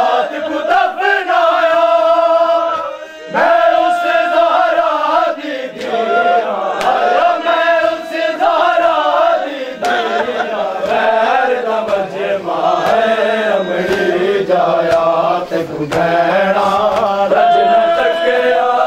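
A group of men chanting a noha, the Shia mourning lament, loudly in unison, with a short break about three seconds in.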